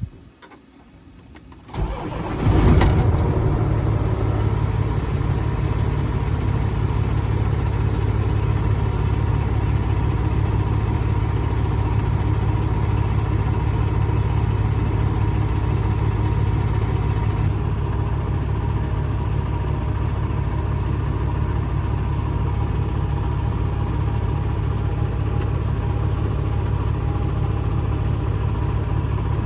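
A short click, then about two seconds in a Kenworth semi truck's diesel engine is cranked by the starter and catches, settling into a steady idle.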